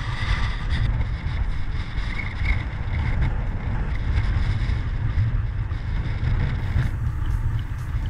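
Wind buffeting the microphone: a steady, gusting low rumble with no clear pitch.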